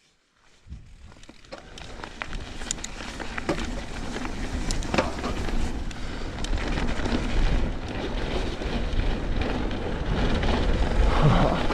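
Mountain bike riding down a wet trail: wind on the microphone and tyre noise that grow louder as speed builds, with scattered clicks and rattles from the bike.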